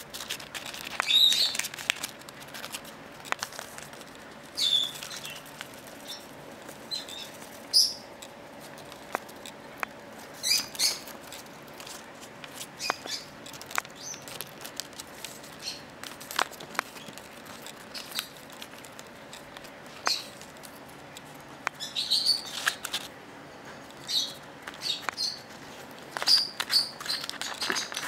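Peach-faced lovebird cutting and tearing paper with its beak: irregular crisp rustles and rips of paper, mixed with sharp small clicks and now and then a short high chirp.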